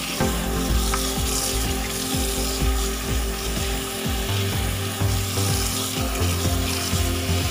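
Tap water running in a steady stream onto lettuce leaves in a plastic colander in a stainless-steel sink, splashing as hands rub and turn the wet leaves.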